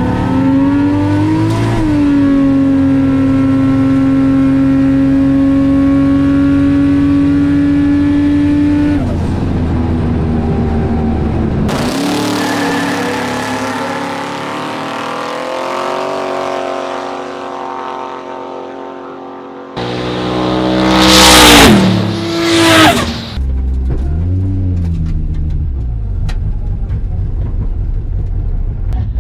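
Two drag cars making a side-by-side run: a Fox-body Mustang with a turbocharged 1JZ straight-six and an HR Holden with a twin-turbo LS V8. Heard inside the Fox-body, the engine holds a steady high note for several seconds. Then from trackside the cars launch with spinning tyres and their notes fall away down the strip, and about three-quarters through come two loud rising-and-falling sweeps of engine sound.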